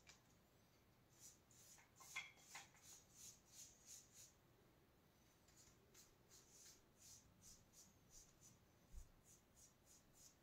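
Faint, quick strokes of a paintbrush laying chalk paint onto a wall, about three soft swishes a second at times.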